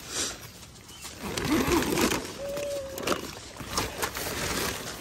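Nylon tent fabric rustling as a door panel and its zipper edge are handled, with scattered small clicks.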